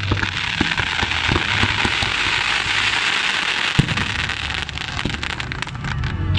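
Aerial fireworks bursting: a dense crackling hiss with scattered pops, and one sharper bang about four seconds in.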